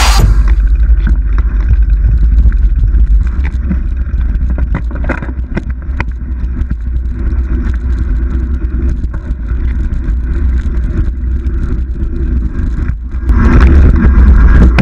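Mountain bike riding down rocky dirt singletrack, recorded on a GoPro: a steady wind rumble on the microphone with tyre noise and scattered knocks and rattles from the bike going over rocks. It gets louder about 13 seconds in.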